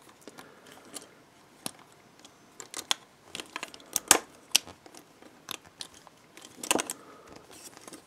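Small metallic clicks and scrapes of a key being worked back and forth in the lock of an old French aluminium handcuff, in scattered clusters with the loudest click about four seconds in. The lock's latch will not fully retract, so the cuff does not open: the lock is worn or faulty.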